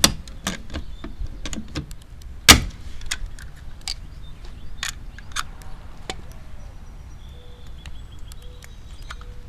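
Hand pop rivet gun setting long pop rivets: a run of sharp clicks and snaps as the handle is worked, with one much louder snap about two and a half seconds in. The clicks thin out after about five seconds.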